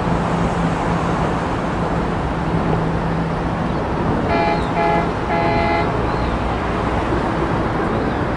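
A horn sounding three short toots about halfway through, the third the longest, over a steady din with a low hum that fades out near the middle.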